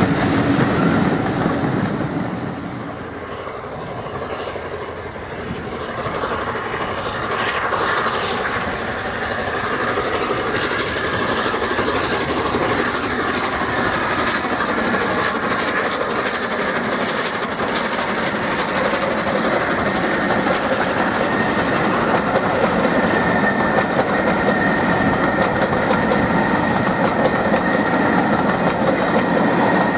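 Steam train hauled by the A1 Pacific 60163 Tornado running past with its rake of coaches: the locomotive working and the carriage wheels clicking over the rail joints. The sound dips briefly a few seconds in, then holds steady.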